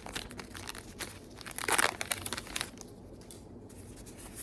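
Trading card pack wrapper being torn open and crinkled, a crackling that is loudest a little under two seconds in and dies down after about three seconds.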